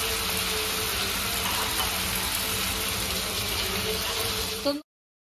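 Paste-coated prawns sizzling steadily in hot oil in a frying pan, just after going in. The sound cuts off suddenly near the end.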